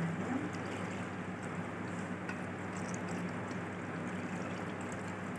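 Sesame oil being poured from a steel saucepan onto chopped raw-mango pickle in a bowl: a steady pouring trickle.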